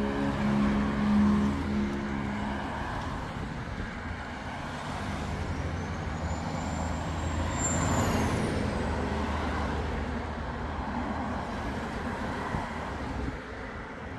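Street traffic: vehicles passing with a steady rumble, and a high squeal that rises and then falls about six to eight seconds in. Background music fades out in the first couple of seconds.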